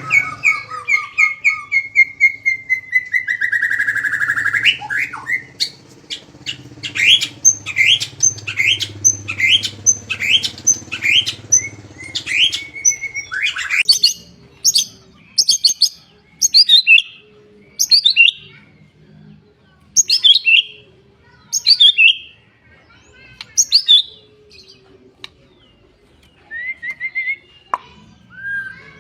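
Songbird singing: a falling run of notes, then a fast burst of sharp, repeated down-slurred notes, then single loud notes every second or two. These are the rapid-fire 'tembakan' phrases used as tutor song for white-rumped shamas.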